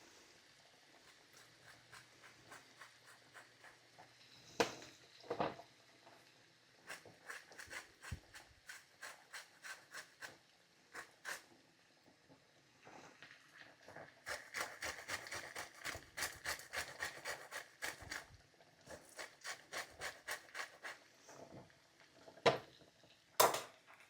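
Lemon being zested on a grater: faint, rhythmic rasping strokes, about two a second, in several runs, with a few louder knocks between them.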